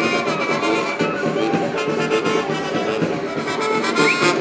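Brass band music, trumpets and trombones playing sustained notes.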